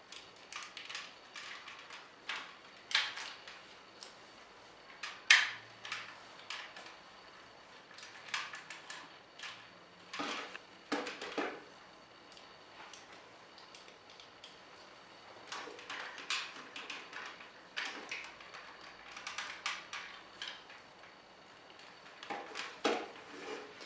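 Hard plastic parts of a Power Rangers Samurai Clawzord toy being handled and clicked together as accessories are reattached: scattered clicks and knocks, the loudest about five seconds in.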